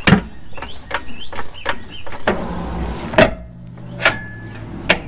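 Irregular sharp metallic clicks and knocks from work on the rear axle and control-arm mounts while the axle is jacked up to line up the bolt holes. A steady low hum joins about two seconds in, and a few more single knocks come over it.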